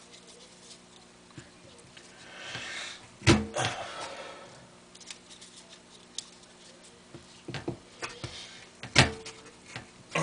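Crumpled junk-mail paper balls crinkling and crunching as they are handled and pressed onto nails in a board, with small clicks and two sharp knocks, one about three seconds in and one near the end.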